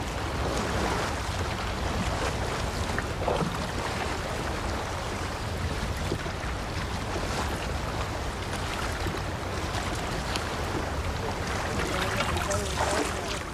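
Boat crossing open water: a steady wash of water and wind.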